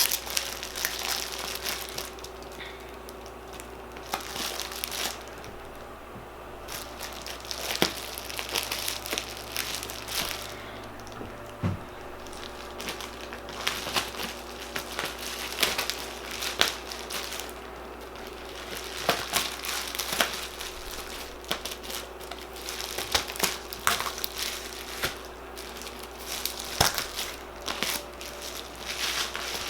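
A cardboard box being worked open along its tear-strip perforation: irregular crinkling, scraping and tearing of cardboard and packaging with sharp clicks, broken by a few quieter pauses.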